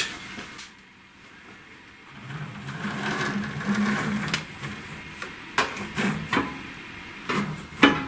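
Hands working on a laser cutter's metal gantry and motor bracket. An uneven low rubbing or rumbling sound starts about two seconds in, then come several sharp clicks and knocks of metal parts being handled.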